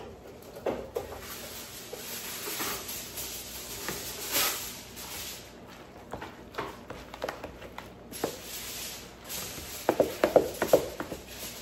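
Kitchen utensil handling: irregular scraping, tapping and knocking against dishes, with a busier run of sharp knocks about ten seconds in.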